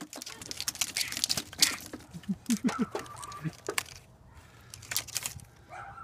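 Irregular clicks, rustles and crinkles of an engine wiring harness in its plastic loom, with its connectors, being tugged free and handled.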